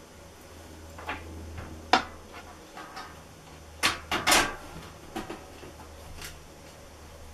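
Handling clicks and knocks as small spacers are pressed into place behind a heater's metal vent mounting plate: about half a dozen sharp taps, the loudest about two seconds in and a cluster just after four seconds. A steady low hum runs underneath.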